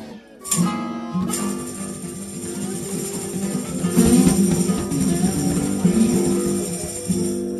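Acoustic blues band playing an instrumental ending on strummed acoustic guitars with tambourine. The final chord rings out and fades near the end.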